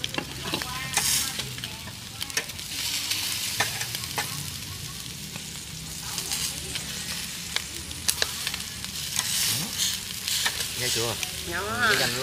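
Food sizzling and crackling in hot fat, with scattered sharp pops.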